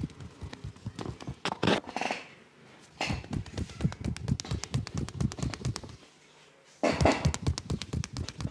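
Rapid hand strikes of a percussive massage, tapping and slapping on the body at several strikes a second, in runs broken by two short pauses, about two and six seconds in.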